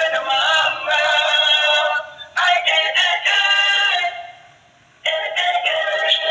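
Dancing cactus toy playing a song with singing through its small, tinny speaker. The song breaks off about four seconds in and starts again a second later.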